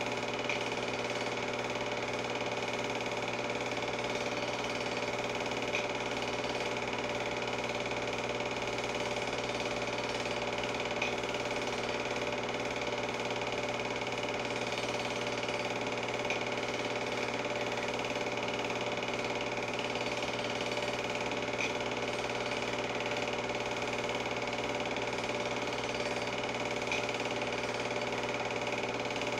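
Home-movie film projector running: a steady mechanical hum and whir with a faint tick about every five seconds.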